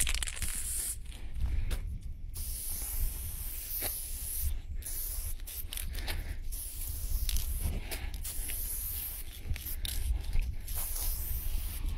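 Aerosol spray paint can hissing as lines are sprayed onto a rough wall, in repeated strokes broken by short pauses, over a steady low rumble.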